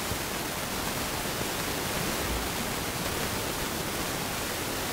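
Steady, even hiss of recording noise with no change in level, and one faint low bump about two and a half seconds in.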